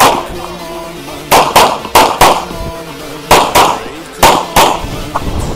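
Handgun fired in rapid strings during an IPSC course of fire, about nine loud sharp shots, mostly in quick pairs (double taps) with short pauses between target groups.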